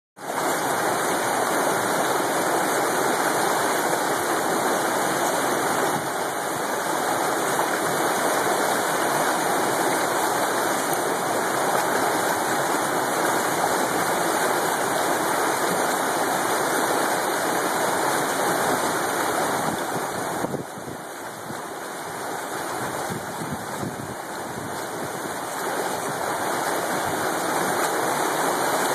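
Mountain brook rushing and splashing over boulders in a small cascade of white water, a steady roar. It turns a little quieter for a few seconds about two-thirds of the way through, then comes back up.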